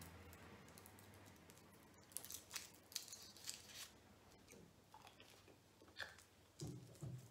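Faint crinkling and ticking of a small chocolate's wrapper being unwrapped by hand, clustered in the middle, then soft chewing near the end.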